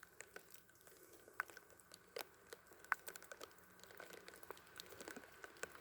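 Faint, irregular ticks and pats of water dripping in a light drizzle, over a faint steady high tone.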